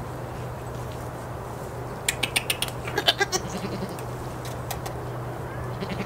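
A goat bleating: one short, rapidly wavering bleat about two seconds in, over a steady low hum.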